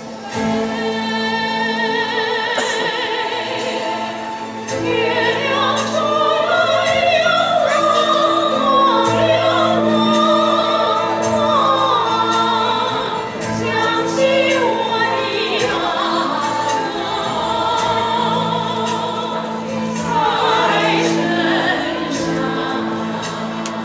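Classical-style singing with strong vibrato over long sustained accompanying notes, continuing throughout.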